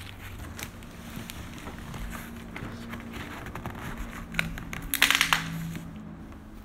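Hands handling a cardboard shipping box sealed with clear packing tape: scattered crinkling and scraping of tape and cardboard, with a louder rasping scrape about five seconds in.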